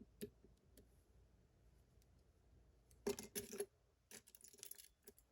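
Faint metallic clicks and rattles of lock picking tools working in a Miwa magnetic cam lock: a few light clicks at first, a dense cluster about three seconds in, and scattered clicks near the end.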